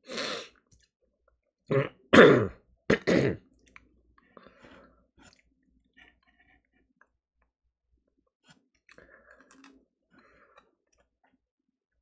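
A man coughing and clearing his throat in four short loud bursts over the first three and a half seconds, then faint chewing while eating fried chicken.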